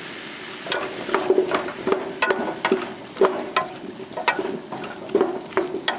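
Wooden spoon stirring chunks of sweet potato and mushroom in a metal pot, with irregular knocks and scrapes of wood on metal a few times a second, starting about a second in.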